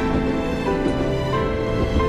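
Background music with held notes that change every half second or so.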